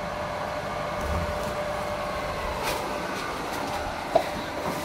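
A steady mechanical hum with a faint, even whine, and two light knocks, the sharper one about four seconds in.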